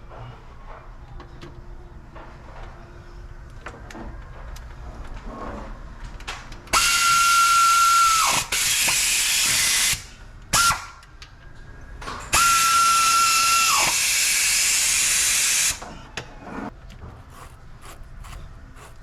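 Power tool run in three bursts of a few seconds and one short blip, a loud hissing rush with a steady whine that winds down as the trigger is released.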